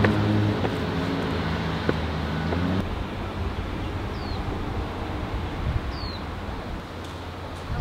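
A steady low hum, like an engine, for about the first three seconds, then stops. After that, open-air background noise with two short falling bird chirps a couple of seconds apart.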